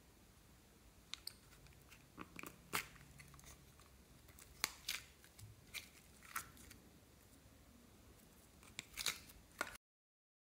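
Short plastic clicks and sticky snapping pops as a small plastic case is opened and thick green slime is peeled out of it. The sound drops out completely for about a second near the end.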